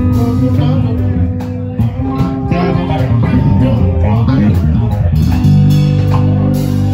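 Live band playing amplified: electric guitars and bass guitar over a drum kit, with a long low bass note held near the end.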